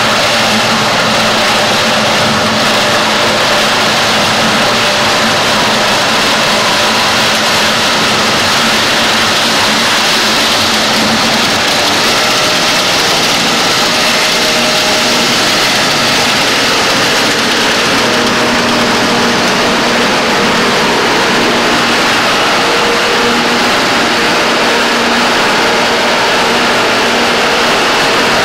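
Cameco two-row whole-stalk sugar cane harvester running steadily as it cuts cane, its engine and machinery making a loud, even noise throughout.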